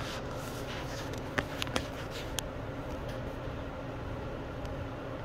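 Steady low hum of indoor background noise, with a few light clicks about a second and a half to two and a half seconds in.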